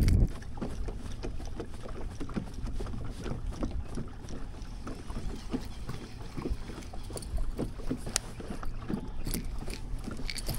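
Fishing boat on the water: a low steady rumble with scattered light taps and knocks.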